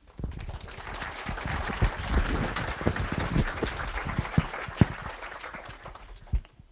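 Audience applauding, a dense patter of many hands clapping that starts suddenly, holds through the middle and tapers off near the end.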